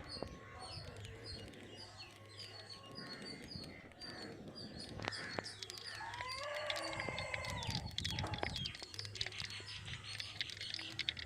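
Birds chirping and tweeting in short repeated calls, with a longer pitched call about six seconds in and a run of sharp clicks near the end.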